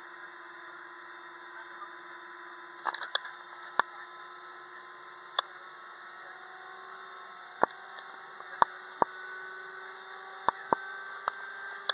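Airbus A320-232's IAE V2500 engines heard from inside the cabin as a steady hum over a hiss, the pitch of the hum and its higher tones creeping up slightly about halfway through. Sharp clicks break in a dozen or so times, mostly in the second half.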